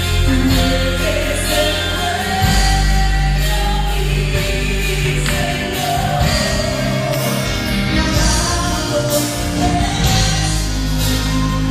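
Live Christian worship music played through a PA: a woman sings the melody into a microphone over a band with sustained bass notes.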